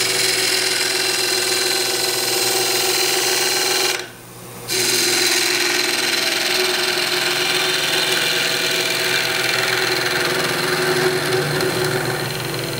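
A hand turning tool cutting into a spinning wood blank on a lathe, a continuous scraping hiss over the steady hum of the lathe, as a tenon is cut on the end of the blank. The cut stops briefly about four seconds in and then resumes.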